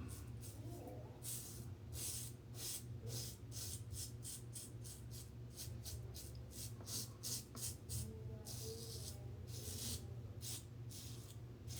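Double-edge safety razor strokes scraping through lathered stubble: short, raspy strokes about two a second, with brief pauses between runs, over a low steady hum.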